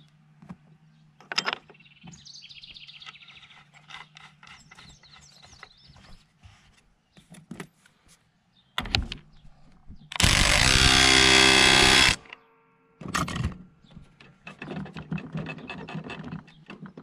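Clicks and light knocks of the washer and nut going back onto the lawn tractor's steering shaft. About ten seconds in, a cordless power tool runs steadily for about two seconds, driving the steering-wheel nut down, followed by a shorter burst about a second later.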